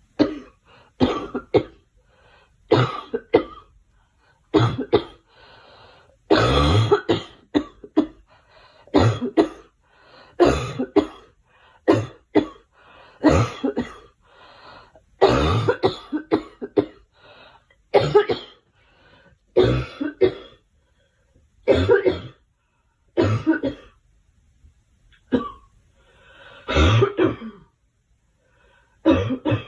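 A girl coughing over and over in bouts of two to four sharp coughs, with short gaps and fainter breaths drawn in between.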